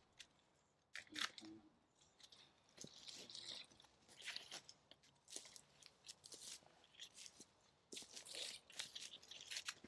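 Quiet, irregular rustling and crackling of a British Army basha tarp being pulled and adjusted by hand.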